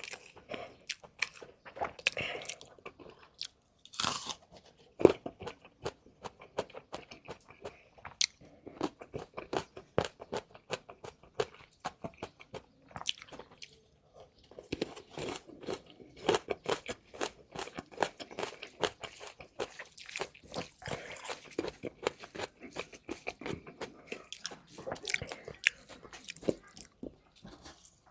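Close-miked eating: a person biting, chewing and crunching food in quick, crisp crunches, with a louder crunch about five seconds in.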